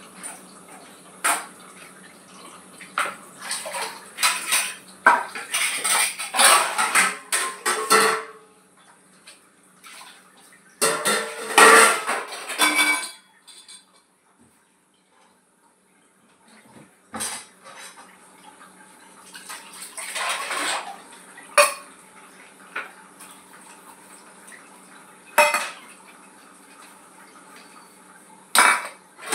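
Dishes being washed at a kitchen sink: metal pots, pans and utensils clinking and clanking against each other and the sink. There are two busier stretches of clatter, one from about four to eight seconds in and one around eleven to thirteen seconds, a short lull, then scattered single knocks.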